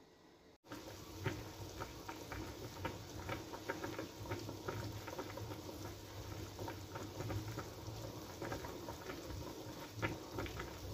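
Water with pieces of mackerel tuna at a hard rolling boil in an aluminium pan, a steady dense bubbling of many small pops starting about a second in.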